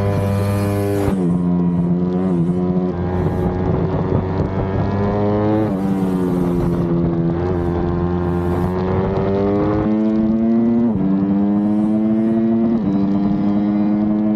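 Honda CRF150R supermoto's single-cylinder four-stroke engine held at high revs while lapping a track. The pitch climbs slowly, then drops and picks up again several times, as at gear changes and corner entries.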